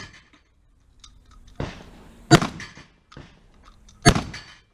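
Two gunshots about 1.7 seconds apart, each a sharp crack followed by a short ringing echo, fired at a steady, deliberate pace.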